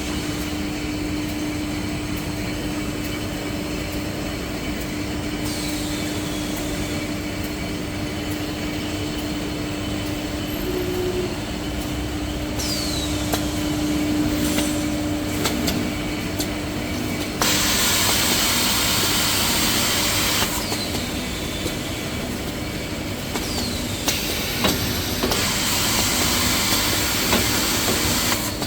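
Automatic maxi roll paper band saw cutting machine running: a steady motor hum, with repeated hissing bursts of one to three seconds, the loudest about two-thirds of the way through.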